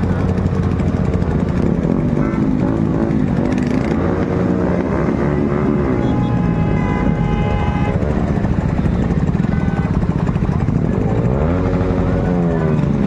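Many motorcycle engines running in a passing procession, rising and falling in pitch as riders rev a few times. A horn sounds steadily for about two seconds midway.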